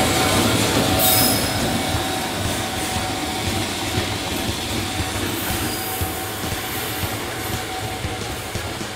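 JR Freight EF210 electric locomotive and its container wagons rolling slowly on the rails, the steel wheels squealing with a steady high tone and a couple of brief sharper squeals, the sound gradually fading as the train draws away.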